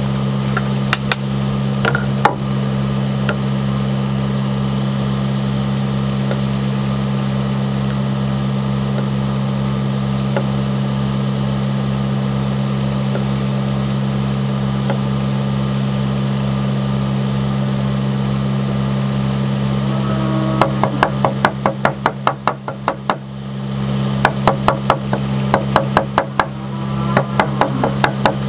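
A 21 cm kitchen knife, hand-forged from 52100 steel, chopping cucumber on a wooden cutting board: from about twenty seconds in, runs of quick, even knocks, about five a second, with a short break in the middle. A steady low hum runs under it throughout.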